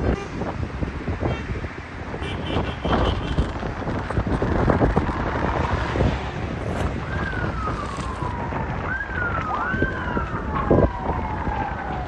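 Emergency vehicle sirens wailing, each a quick rise then a slow fall in pitch, starting about seven seconds in, with a second siren overlapping the first near the end. Underneath is a steady rush of wind noise on the microphone and scattered knocks.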